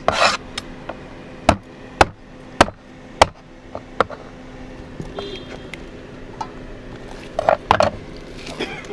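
Steel cleaver chopping raw chicken feet on a wooden cutting board: a string of sharp chops, about one every half to two-thirds of a second, over the first four seconds. Softer handling and rustling of the raw feet follows near the end.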